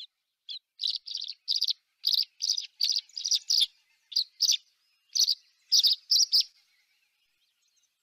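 Tree swallows calling: a string of short, high-pitched chirps, about two a second, that stops about a second and a half before the end.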